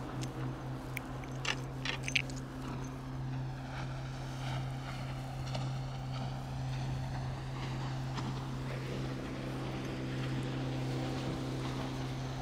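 Steady low drone of a boat engine running out on the water, with a slow swishing sweep in its sound midway as it moves. A few sharp clicks in the first two seconds come from the spinning reel being handled.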